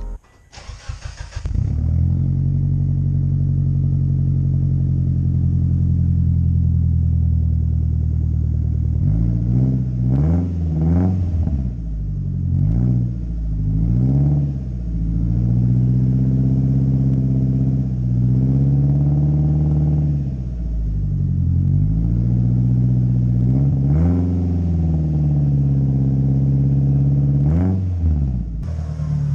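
Turbocharged Mitsubishi 4G63 four-cylinder of a 1997 Eclipse GSX with a big 3076 turbo, on the road. It holds a steady pace for several seconds, then its pitch climbs and drops back again and again as it accelerates and shifts.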